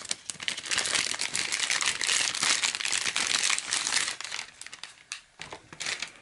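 Clear plastic packaging bag crinkling as a boxed knitting needle set is pulled out of it, dense for about four seconds, then a few fainter rustles.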